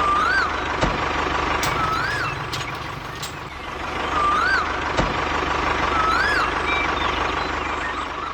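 A small machine's motor runs steadily, with a constant whine. Short rising-and-falling chirps come about every two seconds over it.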